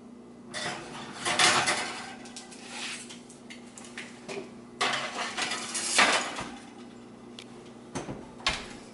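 A glass baking dish, then a foil-lined metal sheet pan, slid onto wire oven racks with clattering and scraping. Near the end, the oven door knocks shut.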